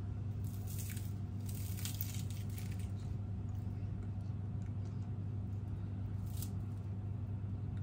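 A crisp, deep-fried sel roti ring being torn apart by hand, with soft crackling of its crunchy sugar-coated crust, once over the first few seconds and briefly again later. A steady low hum runs underneath.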